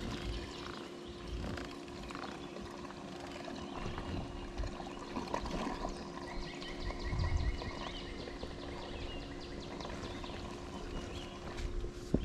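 Quiet riverside ambience around a kayak: birds calling, with a short run of quick repeated chirps about halfway through, faint ticks and water sounds, over a steady low hum.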